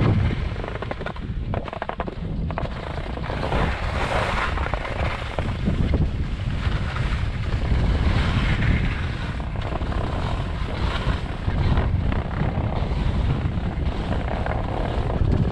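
Rushing wind buffeting the microphone of a camera worn by a moving skier, with skis hissing and scraping over packed snow.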